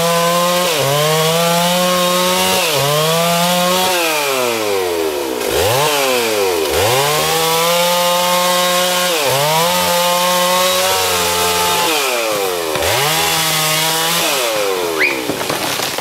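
Two-stroke chainsaw cutting into the trunk of a large tree. The engine note keeps sagging sharply as the chain bogs down in the wood, then revs back up, over and over.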